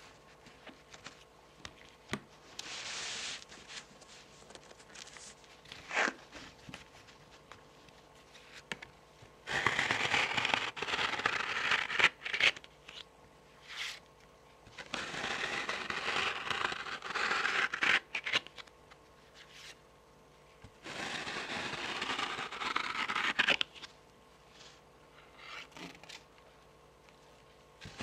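Long fingernails scratching and tapping on the faces of tarot cards. A few light taps and soft rustles come first, then three spells of steady scratching, each lasting two to three seconds.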